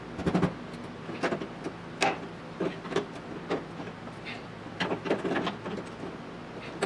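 Brazed sheet-steel body panel being wiggled back and forth by hand to work it loose, giving irregular metallic clicks, knocks and creaks.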